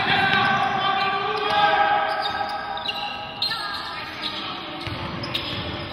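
Basketball game play on a hardwood gym court: the ball bouncing, with scattered impacts, and players' voices calling out, strongest in the first half.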